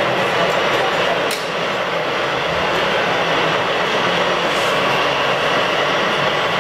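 Steady hiss of steam escaping from a gauge 1 live-steam model locomotive's chimney, with one sharp click about a second and a half in.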